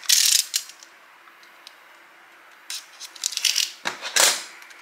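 Box cutter slitting the packaging of a small box: a short scraping cut at the start, then a cluster of clicks and two sharp scraping strokes about three to four seconds in.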